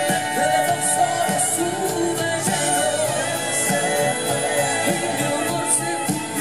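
Live band music: a woman singing into a microphone with a saxophone playing alongside, over a drum beat.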